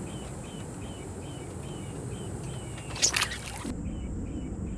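Outdoor wildlife ambience: a small creature chirping repeatedly, short high chirps about two a second, over a low steady background. A brief splashy rustle about three seconds in.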